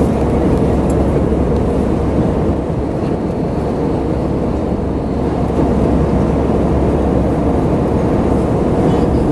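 Steady cabin noise of a jet airliner in flight: an even drone of engines and airflow with a low hum underneath.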